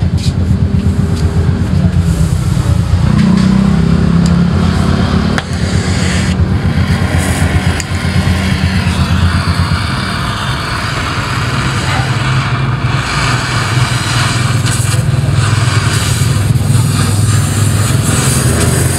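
A gas welding torch flame hissing as it heats and welds a scooter's steel chassis, over a steady low mechanical drone that runs the whole time. The hiss grows fuller in the second half.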